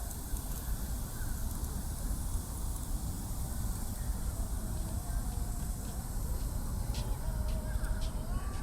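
City park ambience dominated by a steady low rumble of road traffic, with a faint wavering tone in the second half and a few short ticks near the end.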